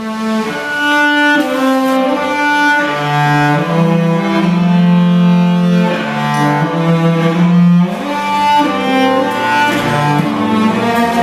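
Cello playing a slow bowed melody of long held notes, sometimes two notes sounding together.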